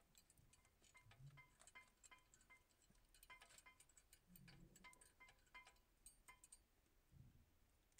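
Near silence with faint, irregular metallic ticks, a few a second, from a wrench being worked on a brake caliper bracket bolt.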